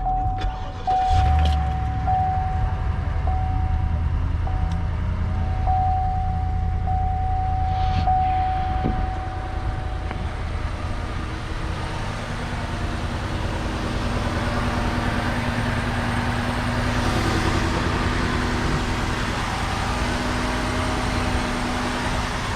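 A car's engine running with a steady low rumble. For about the first ten seconds a thin, high tone sounds on and off above it.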